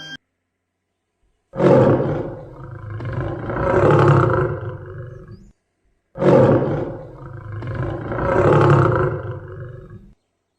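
A big cat's roar, played twice as the same recording, each roar about four seconds long and swelling twice.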